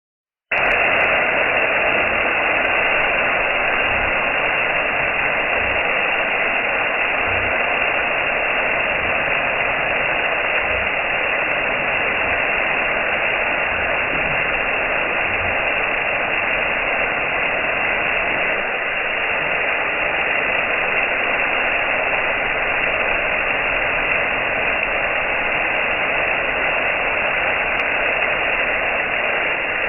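Steady rushing hiss of water spraying from a garden hose, slowed down so it sounds dull and low.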